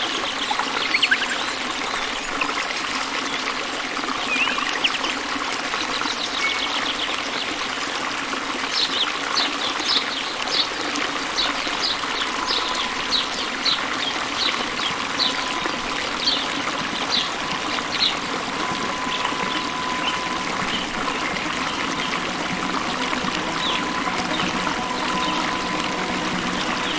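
Steady rushing noise like running water, with a run of short high chirps about twice a second through the middle.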